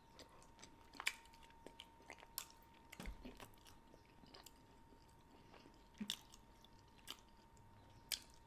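Quiet close-up chewing of a shredded brisket taco: soft wet mouth clicks and smacks, with a few louder ones about a second in, near three seconds, near six and near eight. A faint steady high tone runs underneath.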